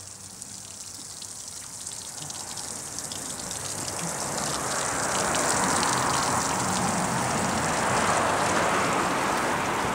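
Water spraying and splashing onto pavement around the stopped outboard's lower unit, a steady rushing hiss with small drip ticks that grows louder over the first few seconds.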